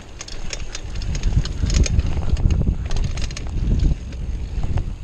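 Mountain bike ridden fast over a dirt trail, with wind rumbling on the microphone and frequent sharp clicks and rattles as the bike jolts over bumps.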